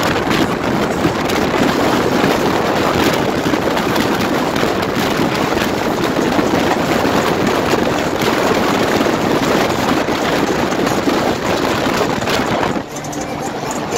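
A car running at speed, with loud wind rushing over the microphone. The noise dips briefly about thirteen seconds in.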